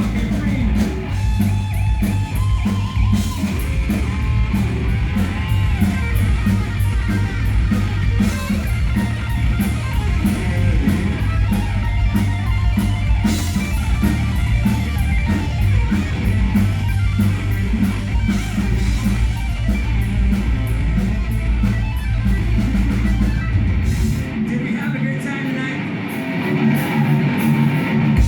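Live hard rock band playing an instrumental passage, with electric guitar over drums and bass. About 24 seconds in, the bass and drums drop out and the guitar carries on alone.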